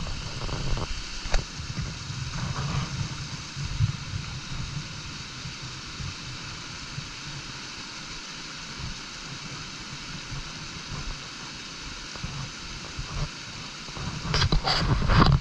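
A brook's water running steadily, with wind buffeting the microphone in a low, uneven rumble. A few louder bumps come near the end.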